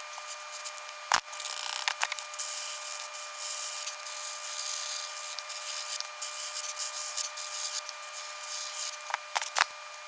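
Pencil scratching across paper in quick strokes, with a few sharp taps, the loudest about a second in, over a steady high-pitched whine.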